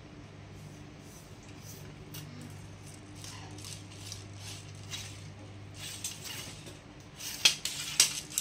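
A fishing rod being handled: soft rubbing and scraping of hands on the blank, then a quick cluster of sharp clicks and taps near the end as the rod and its reel seat are knocked and turned.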